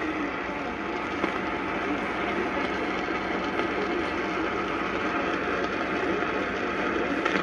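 Steady hiss of radio static with a low rumble beneath it.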